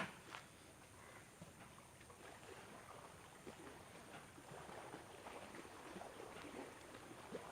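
Faint, irregular rustling and light taps of hands working over the scalp and skin during a head massage, with two sharp clicks right at the start.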